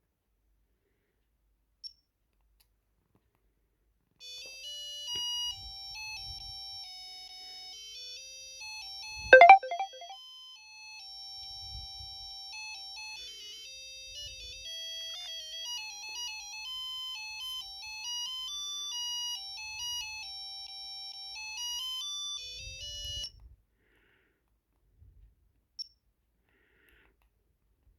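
Samsung Anybbi Pro pager playing its electronic beeping alert melodies, high thin notes stepping up and down in pitch for about twenty seconds. A sharp click sounds about 9 seconds in, and there are a few faint knocks of handling.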